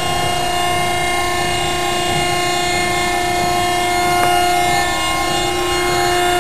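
Steady machine hum at one fixed pitch, with a single faint click a little past four seconds in.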